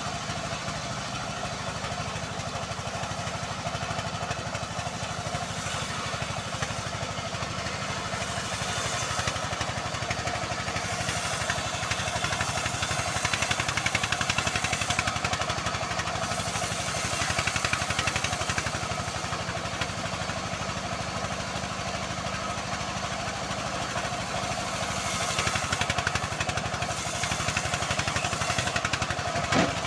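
Engine-driven homemade bandsaw mill running steadily while sawing a long teak log, its level swelling several times during the cut. A brief low knock comes near the end.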